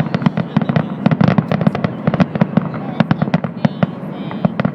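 Fireworks finale barrage: a dense, unbroken run of bangs, several a second, overlapping one another.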